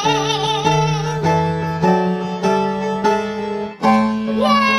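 A woman singing with a wide, wobbling vibrato over instrumental music, moving through a run of held notes; after a short break just before the end, a new long, wavering note begins.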